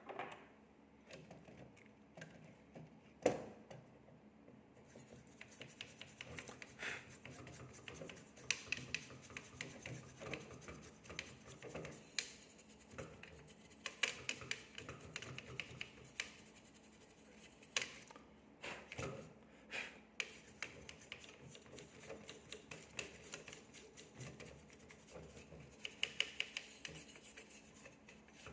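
Hands working on a graphics card: irregular small clicks, taps and scratchy rubbing of plastic and metal parts, with a sharper knock about three seconds in.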